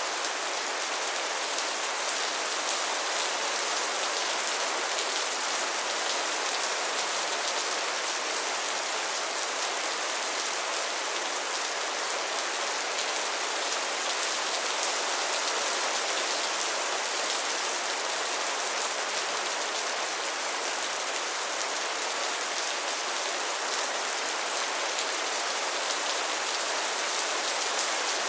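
Steady rain falling, a continuous even hiss of drops hitting surfaces, with no thunder or other sounds standing out.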